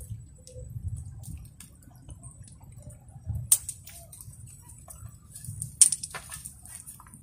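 Wet fishing gill net being handled by hand as fish are picked out of it: scattered small clicks and rustles over a low rumble, with two sharp snaps, one about three and a half seconds in and a louder one near six seconds.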